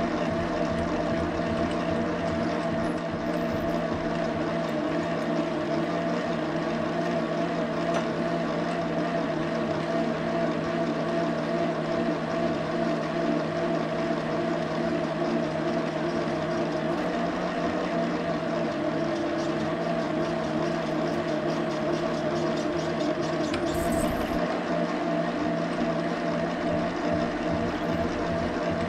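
Metal lathe running, its chuck spinning and coolant flowing as it machines a part, giving a steady machine hum with a constant tone. A short bump comes about three-quarters of the way through.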